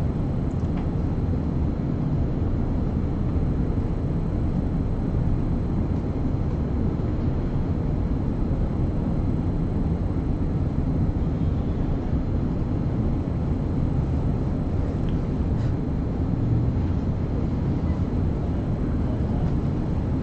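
Steady low rumbling noise with no speech in it, even throughout.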